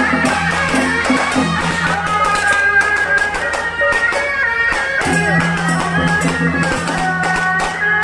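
Loud procession music with dense, rapid drum and cymbal strikes and a shrill wind instrument carrying a wavering melody over them.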